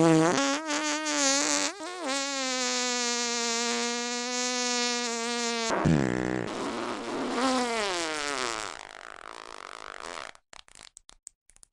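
Brushless motors and 5-inch propellers of an FPV quadcopter (2206 2700KV motors, 5x4.3 props) whining, the pitch following the throttle. It rises as the quad climbs, holds a steady high buzz, drops suddenly, then swoops up and down again and fades. It cuts in and out near the end.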